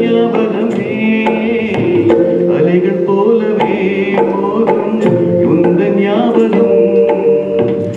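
Live performance of a Malayalam song: a man singing through a microphone and PA, backed by electronic keyboards and a steady drum rhythm.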